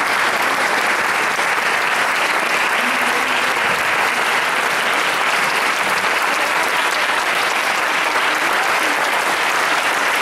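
Audience applauding, steady dense clapping that does not let up.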